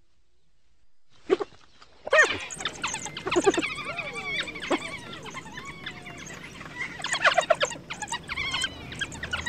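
African wild dogs mobbing a spotted hyena: a quiet opening, then from about two seconds in a tangle of high-pitched squeals and chirping calls that rise and fall and break off quickly, with one lower, longer wavering call in the middle.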